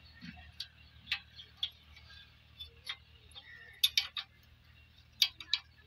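A metal spanner clicking and clinking against the blade nuts of a chaff cutter as they are worked loose: a scattering of sharp, separate metallic ticks, with a quick cluster of three near the middle.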